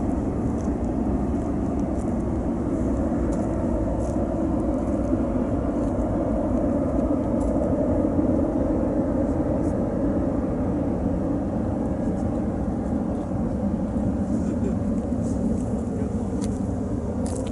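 Jet engines of a cargo airliner at takeoff power, a steady, even rumble that holds at one level throughout.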